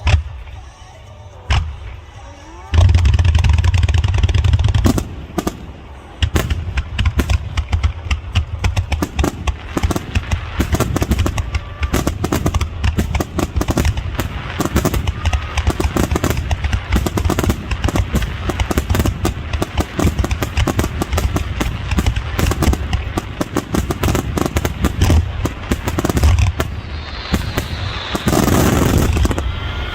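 Fireworks finale: two single booms, then from about three seconds in a dense, continuous barrage of rapid bangs and crackles with a deep rumble underneath, and a loud rushing noise shortly before the end.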